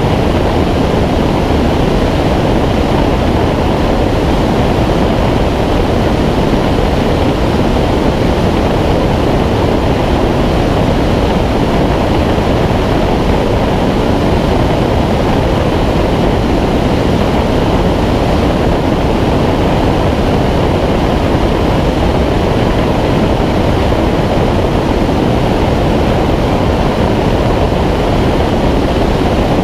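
Steady, loud wind rush from air streaming over a camera mounted under the wing of a Schweizer 2-33 glider in engineless gliding flight.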